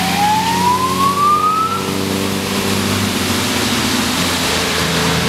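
Heavy vehicles passing on a wet road: steady engine hum with tyre hiss. During the first two seconds a siren wails once, rising in pitch.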